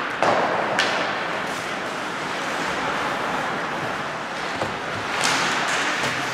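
Ice hockey play: a steady hiss of skates scraping the ice, with a few sharp clacks of sticks and puck.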